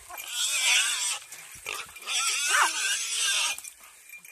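Young wild boar squealing in distress as hunting dogs bite and hold it: two long, high-pitched, wavering squeals, the first about a second long and the second about a second and a half.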